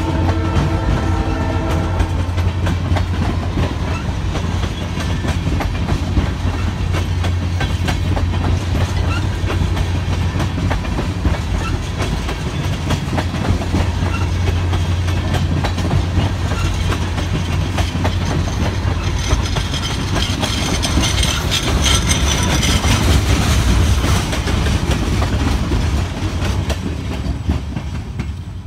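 Freight train of tank cars rolling past with a steady low rumble and wheel clicks over rail joints. The Norfolk Southern SD40-2's Leslie RS-3L multi-chime horn is still sounding at the start and cuts off about two seconds in. A higher hiss swells after the midpoint, then the sound fades as the end of the train goes by.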